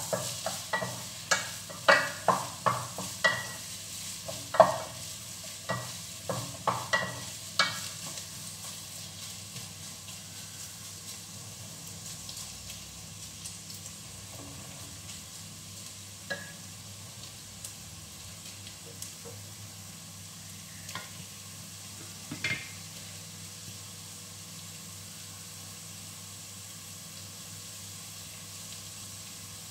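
Sliced carrot and red chili sizzling steadily in oil in a stainless steel pot, while a spatula stirs and knocks against the pot in quick strokes for the first eight seconds or so. After that the sizzling goes on alone, with a few single knocks.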